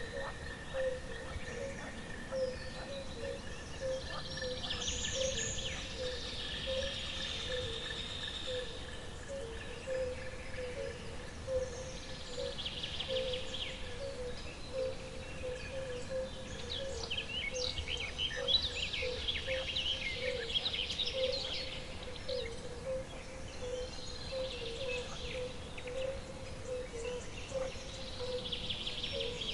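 Wild nature ambience: birds chirping in bursts every few seconds over a steady, rapidly pulsing low call and a continuous high whine that fades out about halfway through.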